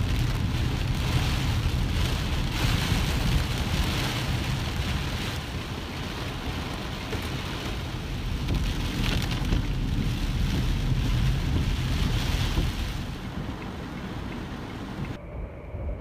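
Heavy rain beating on a car's windshield, heard from inside the car, with a steady low rumble beneath that swells and eases. About a second before the end the sound turns quieter and duller.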